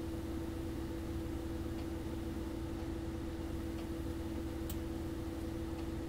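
Steady low electrical hum with hiss, with a few faint ticks here and there.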